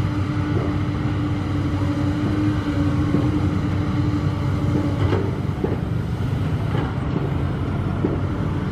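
Komatsu PC200 excavator's diesel engine running steadily as the machine swings and digs, with a steady hum over the rumble. A few light knocks come through, the clearest about five seconds in.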